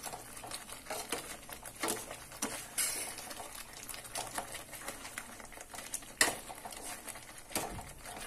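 A perforated steel spoon stirring a thick masala gravy with paneer cubes in a stainless-steel kadai: irregular scrapes and taps of metal on the pan, the sharpest about two, three, six and seven and a half seconds in.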